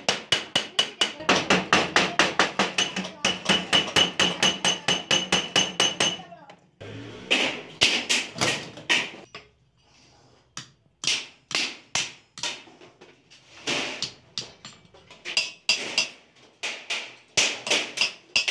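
Hammer striking the edge of a galvanized sheet-metal trunk, fast and even at about five blows a second with a metallic ring, stopping about six seconds in; after a short pause the blows come slower and irregular.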